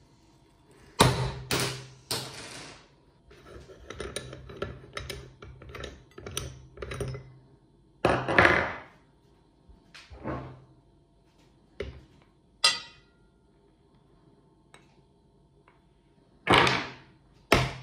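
Hard candy sticks being crushed in a metal meat grinder: irregular sharp cracks and crunches, with a low hum under them through the first half, thinning out to a few isolated clicks and knocks later.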